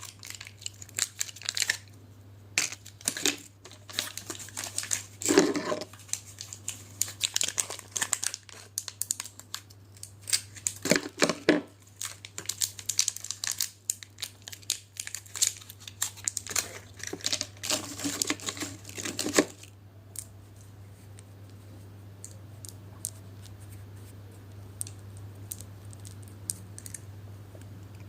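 Medicine packaging being crinkled and torn, in repeated bursts of crackling. After about twenty seconds it dies down to a few faint small clicks over a steady low hum.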